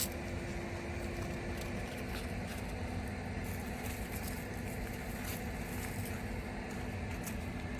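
Steady outdoor background hum with faint, scattered rustles and crackles of soil being dug through by hand.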